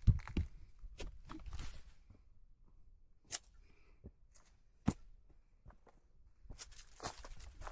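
Scattered footsteps and boot scuffs on gravel and granite: a few sharp clicks and knocks with quieter gaps between, then a busier cluster of steps near the end.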